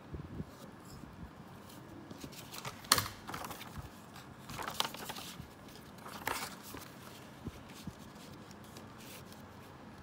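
Sheet of paper rustling as it is handled, in a few short bursts, the loudest about three seconds in.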